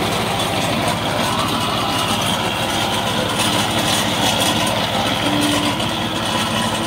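Mahindra Jivo 305 DI mini tractor's diesel engine running steadily under load while it drives a ratoon manager, the implement cutting through sugarcane stubble and churning soil between the rows.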